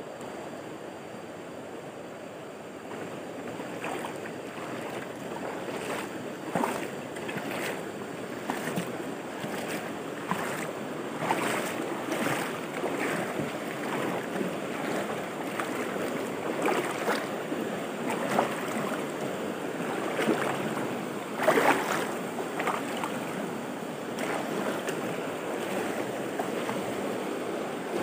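River water rushing over rocks, a steady noise that grows a little louder, with scattered short knocks throughout and one louder knock about three-quarters of the way through.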